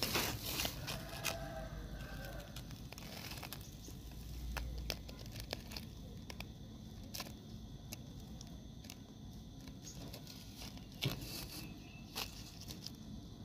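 Scattered small clicks and gritty crackles, with the sharpest click at the very start and another about eleven seconds in, over a faint steady outdoor background.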